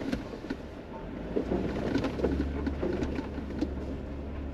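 Jeep Wrangler driving slowly over a rough dirt track, heard from inside the cabin: a low engine and road rumble with frequent small knocks and rattles from the body and loose items jolting over bumps. The rumble grows stronger about halfway through.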